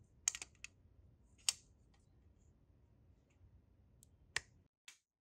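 Sharp metallic clicks as a small metal pulley is handled and fitted onto a mower's blade-clutch shaft: a few in the first second and a half, then more near the end.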